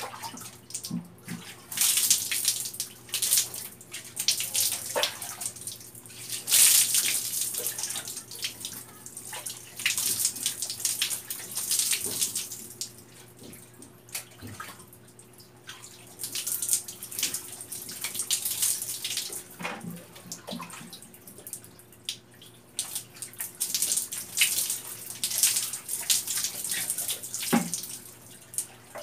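Water poured from a plastic dipper over a person's body and splashing down, in about five pours of a few seconds each with quieter gaps between.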